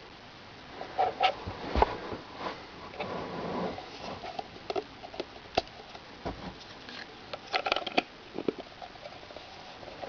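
Handling noise: irregular small clicks and taps with some rustling, a few of them carrying short faint tones.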